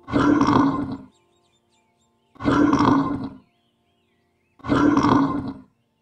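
A bear roaring three times, about two seconds apart, each roar loud and about a second long.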